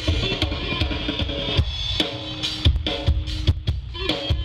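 Music with a drum kit, a steady kick-drum beat of about two to three hits a second, and guitar, played loud through a large outdoor stage PA rig with stacked line-array speakers during a sound check.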